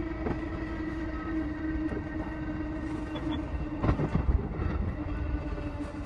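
E233-series electric train running, heard inside the driver's cab: a steady rumble of wheels on the track under a steady hum, with a brief clatter about four seconds in.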